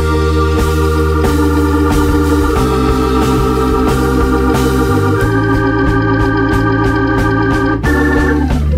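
Background music: sustained organ-like keyboard chords over a steady beat, moving to a new chord about every two and a half seconds.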